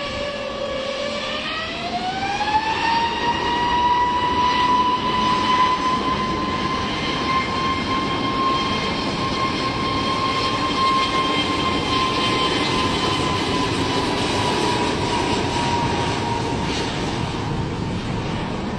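Airbus A320's turbofan engines spooling up to takeoff thrust: a whine rises in pitch over the first few seconds, then holds steady over a loud rush of jet noise during the takeoff roll.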